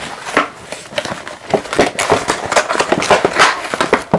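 Packaging being handled and pulled apart: a run of irregular crinkles, clicks and rustles.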